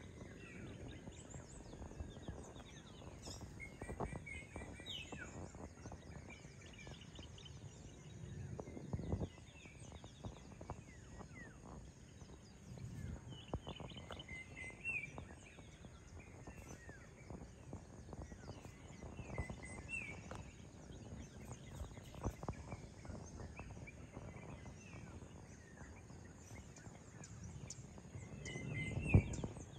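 Daybreak outdoor ambience: birds chirping in short clusters of calls, over a low steady background of environmental noise. Low rumbling swells rise and fall, the loudest about nine seconds in and just before the end.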